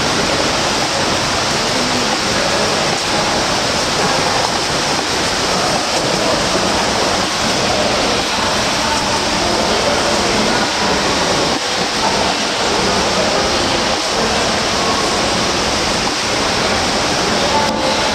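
Steady rush of splashing water from freestyle swimmers churning through an indoor pool.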